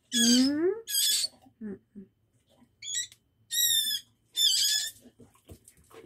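Baby bird giving short, shrill chirps, four or five separate calls a second or so apart, as it is being hand-fed: the calls of a hungry nestling.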